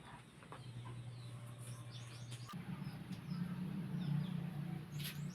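Chickens clucking and small birds chirping, over a steady low hum that gets louder about halfway through.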